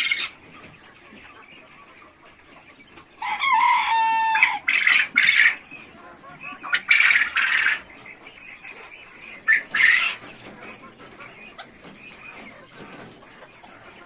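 Coturnix quail in their cages crowing: loud calls about three seconds in, then again around five, seven and ten seconds, over softer chirping between them.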